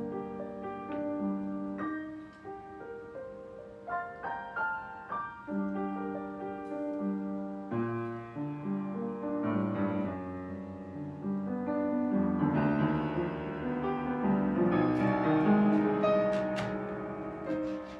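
Background piano music: a melody over sustained chords, fuller and louder in the second half.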